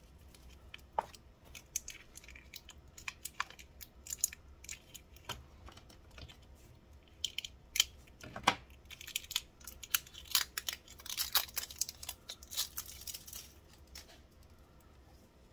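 Scattered sharp clicks, taps and short rustles of hands handling a roll of washi tape, with tape being peeled and small scissors picked up. The sounds come thickest in the second half.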